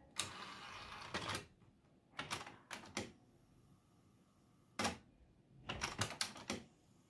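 Cassette door of a Denon cassette deck pushed shut with a click, followed by a series of sharp mechanical clicks from the deck's tape transport mechanism, with a quick cluster of clicks near the end.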